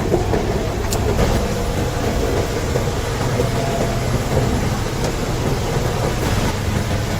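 Heavy vehicle engine running steadily with a low rumble, with a couple of faint clicks.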